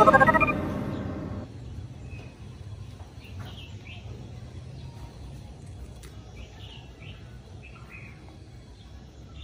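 A chiming, sparkly transition sound effect fades out over the first second or so. After it, quiet outdoor background with scattered faint bird chirps.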